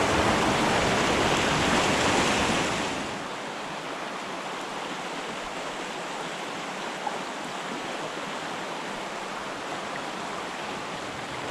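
Mountain creek water rushing steadily, louder for about the first three seconds, then dropping suddenly to a quieter, even rush.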